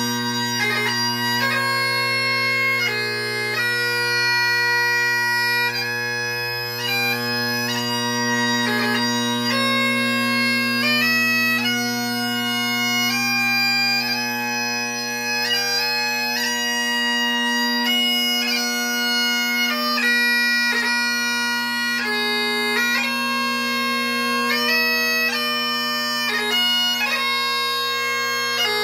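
Great Highland bagpipe playing a tune: the chanter's melody of quickly changing notes over the steady, unbroken hum of the drones, which are fitted with one of two drone-reed setups being compared.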